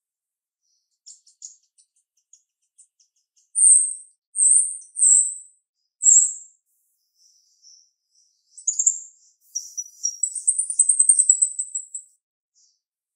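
A female jalak rio-rio (starling) calling in a sharp, high voice. There are a few soft ticks, then four loud, short whistled notes in quick succession, and near the end a fast, high chattering trill lasting about two seconds.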